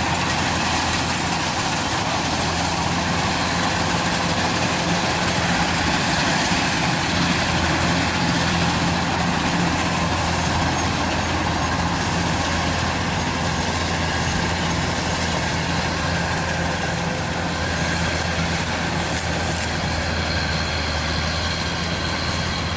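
Kubota DC-105X rice combine harvester running steadily under load while cutting and threshing ripe rice: a constant diesel engine drone with the machine's threshing noise over it.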